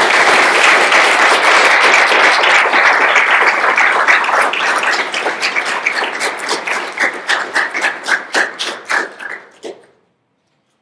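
Audience applauding: dense clapping that thins out in the second half into scattered single claps and stops near the end.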